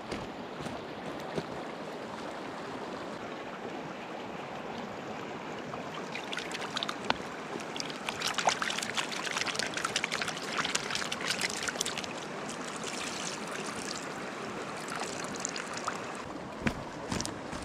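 Steady rush of river water, with splashing and clatter from about six to twelve seconds in as things are washed in the water, and a couple of sharp knocks near the end.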